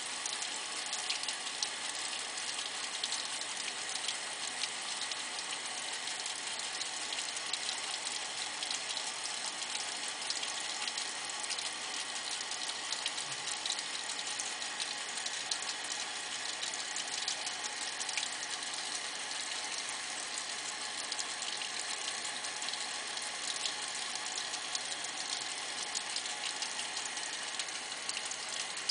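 A thin stream of tap water running from a faucet into a sink basin: a steady trickling splash with many fine droplet ticks.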